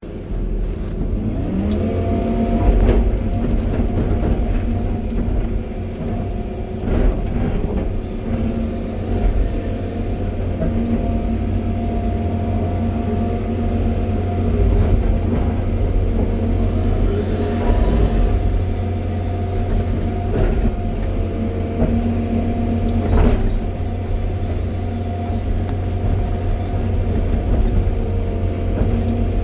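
John Deere 350G excavator's diesel engine running steadily, rising in pitch about a second in, with a few knocks now and then.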